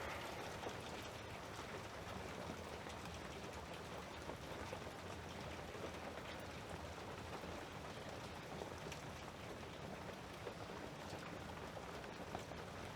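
Steady rain falling: a constant, even hiss with faint scattered ticks.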